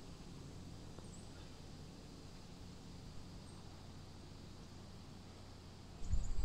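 Quiet open-air golf-course ambience: a steady low hum with a couple of faint, brief high bird chirps. About six seconds in, a louder low rumble starts suddenly.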